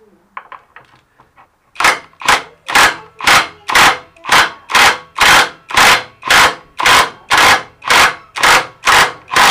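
A hand tool working on a stuck spin-bike part in steady repeated strokes, about two a second, starting about two seconds in after a few light clicks.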